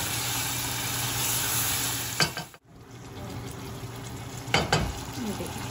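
Chicken pieces sizzling as they fry in oil in a saucepan, stirred with a wooden spoon that knocks against the pan twice. The sizzle cuts out for a moment about halfway through, then carries on.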